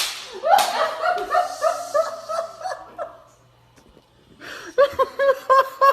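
A person laughing in a run of short, rhythmic ha-ha bursts that fade out about three seconds in. After a brief pause, another run of quick, evenly spaced pitched bursts starts near the end.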